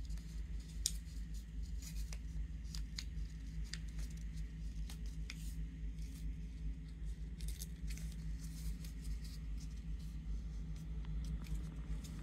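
Sheet of paper being folded and creased by hand: scattered short crinkles and clicks of the paper over a steady low hum.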